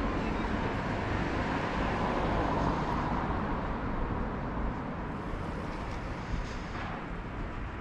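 Street traffic noise from the adjoining road: a passing vehicle's hiss swells to a peak about three seconds in, then fades.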